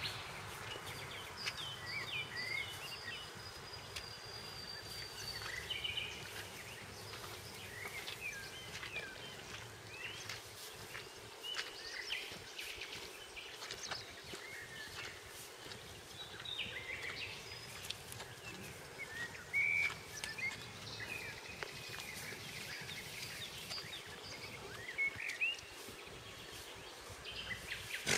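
Several songbirds singing and chirping in a steady chorus of short, varied calls, with a longer whistled note early on and a couple of louder calls in the second half, over a faint, even outdoor background hiss.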